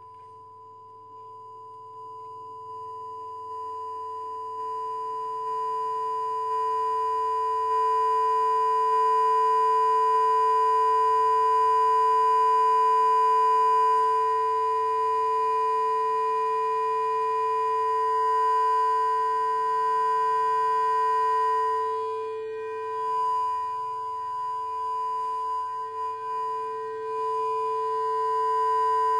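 Steady electronic test tone from a smartphone's speaker, played at a robot's microphone to drive its sound-level indicator. It grows louder in steps over the first several seconds as the volume is raised, then wavers and dips near the end as the phone is moved.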